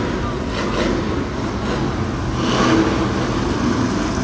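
Loud, steady engine noise from vehicles being driven, with no clear single pitch.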